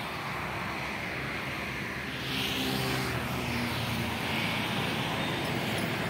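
Steady outdoor traffic noise with a motor vehicle's engine hum, which grows louder about two seconds in.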